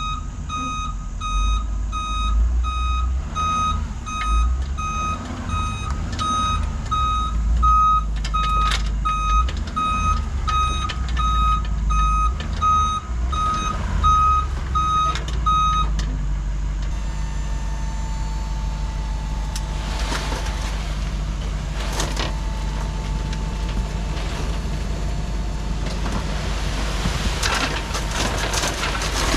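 Mason dump truck reversing, its backup alarm beeping about once a second over the steady run of the engine. The alarm stops a little past halfway and the engine keeps running, with a few sharp clunks.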